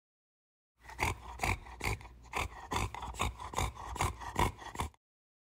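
Short intro music sting: a steady beat of about ten heavy hits with deep bass, roughly two and a half a second, starting about a second in and cutting off near the end.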